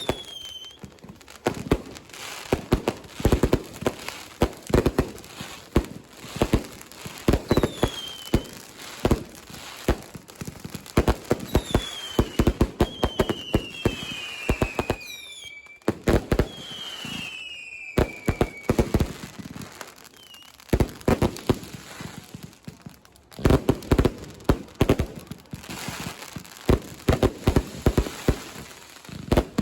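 Fireworks and firecrackers going off in a dense, irregular barrage of sharp bangs. Several falling whistles of whistling fireworks come through it, most of them clustered in the middle.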